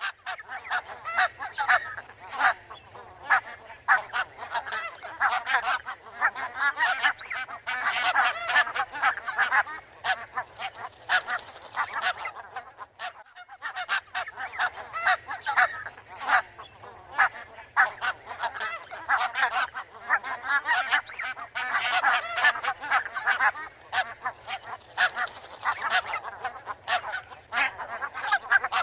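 A flock of barnacle geese calling: many short, overlapping yapping honks in a continuous chatter, with a brief lull about halfway through.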